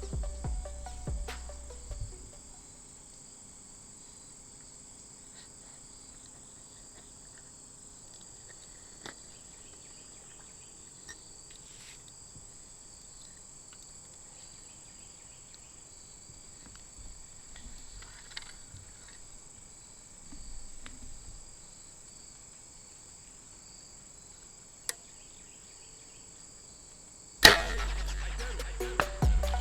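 Crickets chirring steadily in a high pitch through a quiet stretch, with a few faint ticks and one sharp crack about 25 seconds in. Background music fades out in the first two seconds and comes back in loudly near the end.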